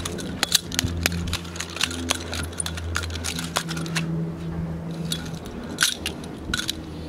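Two khukuri knives being twirled and spun by hand, giving rapid, irregular metallic clicks and clinks, with a low steady drone underneath.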